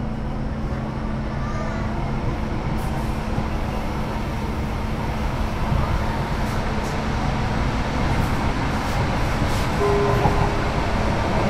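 1987 Duewag/Kiepe B80D Stadtbahn car running on the line, a steady rumble of running gear and wheels on rails that slowly grows louder, with a few light clicks and a brief higher tone near the end.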